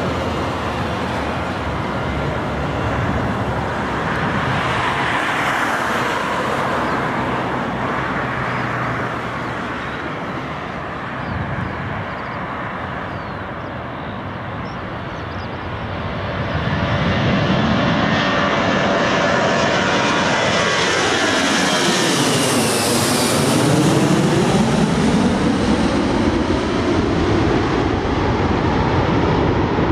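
Four-engined jet airliner, an Airbus A340, at takeoff thrust as it lifts off and climbs low overhead. The engine noise grows louder about halfway through, and a sweeping tone falls and then rises again as the aircraft passes.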